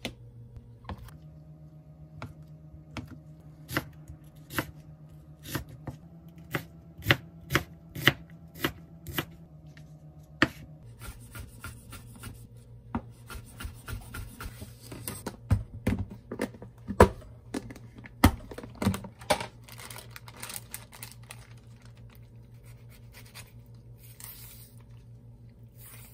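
Kitchen knife cutting a block of canned ham on a plastic cutting board, each stroke a sharp tap, the taps coming faster. About ten seconds in, quicker, denser chopping of onion on a wooden board takes over and dies down near the end.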